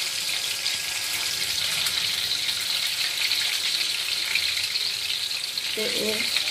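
Chicken pieces frying in hot oil in a pan: a steady sizzle with fine crackling.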